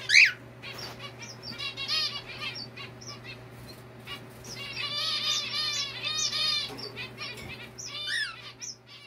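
Zebra finches calling from their cages: many short nasal, arched calls, one loud call right at the start and a dense burst of chattering in the middle. A steady low hum runs underneath.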